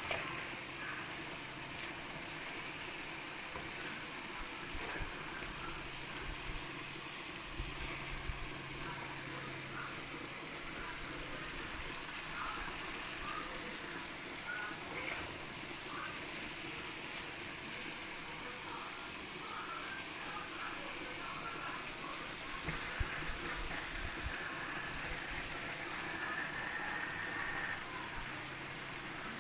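Vegetables frying in hot oil in a pan: a steady sizzle with scattered small pops and crackles.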